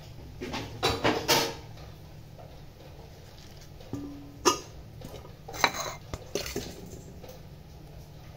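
A large stainless steel mixing bowl and kitchen utensils clattering and knocking on a counter. A cluster of clatters comes about a second in, sharp knocks at about four and a half and five and a half seconds in, then lighter taps.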